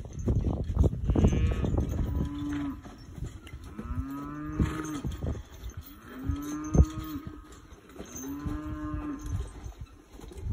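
Cattle mooing: four long moos, each about a second and a half, a couple of seconds apart, with some knocking and clatter in the first two seconds.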